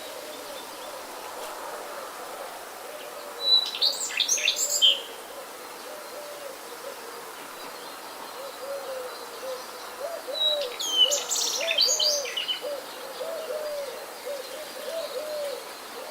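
Forest birds calling: a low hooting note repeated steadily, one to two notes a second, under two short bursts of high, fast chirping song, about three and a half and ten seconds in.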